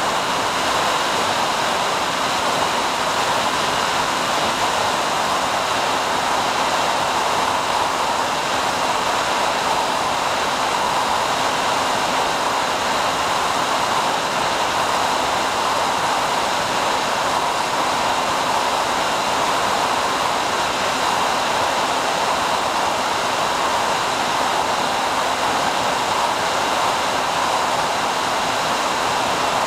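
Steady static hiss on the audio track of an analog FPV video downlink as recorded by the ground station's DVR. It is even throughout, with faint steady tones underneath.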